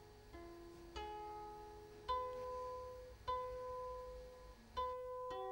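Quiet background music of slow, single plucked-string notes, a new note about every one to one and a half seconds, each ringing on.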